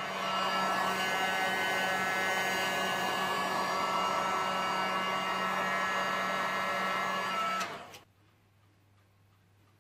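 Electric hot air gun running steadily, its fan blowing with a whine, then switched off about eight seconds in. It is being played over set epoxy resin to soften the surface.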